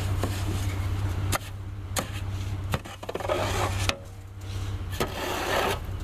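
Metal roof rake scraping and dragging heavy, wet snow off a pickup truck's roof and bed: a rough rasping broken by several sharp knocks as the rake hits the truck. A steady low hum runs underneath.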